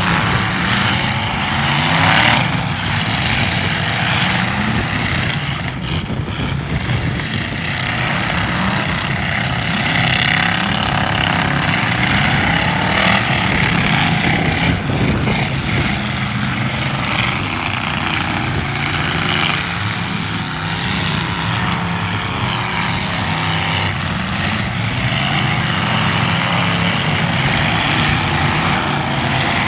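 Several demolition derby cars' engines running and revving up and down together, with a few short knocks from impacts.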